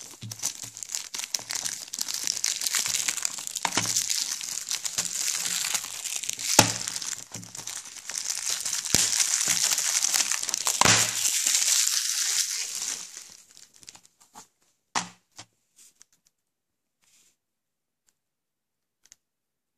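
Clear plastic shrink-wrap crinkling and tearing as it is peeled off a Blu-ray case by hand, with a few sharp snaps among the rustle. The crinkling dies away after about 13 seconds, with one last snap a little later.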